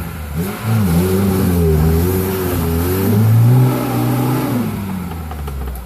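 Lada Niva's four-cylinder engine revving hard under load as the car churns through mud, its pitch swinging up and down several times and loudest a little past the middle.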